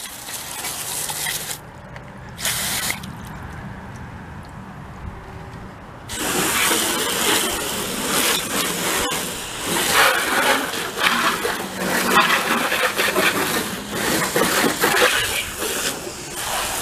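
Garden hose spray nozzle spraying water onto a car's body and rear window, an uneven hiss that gets louder about six seconds in.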